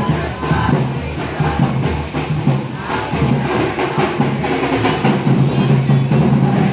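Parade band music with drums and percussion playing steadily.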